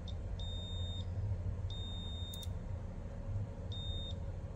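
Digital multimeter beeping on and off as its test probes make and break contact on a laptop logic board: a brief chirp, then three high steady beeps of about half a second each. A steady low hum runs underneath.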